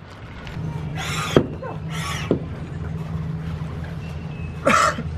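Hand pump inflating an inflatable stand-up paddleboard: a few strokes, each a short rush of air with a tick, two about a second apart and another near the end, over a steady low hum.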